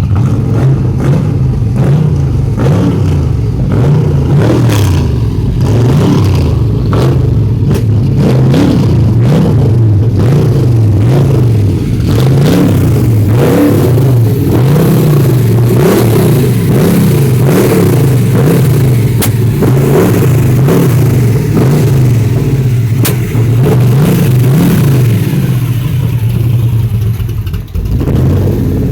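A 1969 Chevelle's 502 big-block V8 running loud on the move, the engine's pitch rising and falling over and over as it is revved and let off. There is a brief drop near the end.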